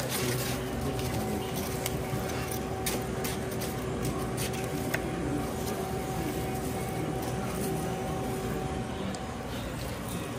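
Steady machine hum over a constant background noise, its tone cutting out about nine seconds in, with a few light clicks and taps.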